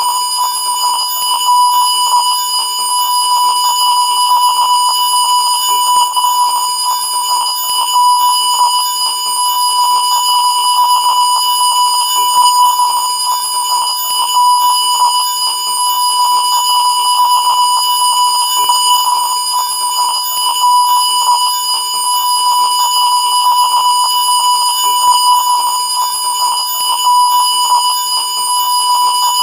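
Colour-bars test tone: a continuous, unbroken 1 kHz reference tone held at a constant pitch and level.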